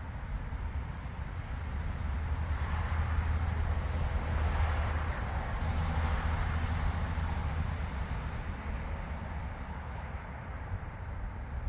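Road traffic passing on a nearby highway: a steady low rumble with a vehicle's tyre hiss swelling through the middle and fading away.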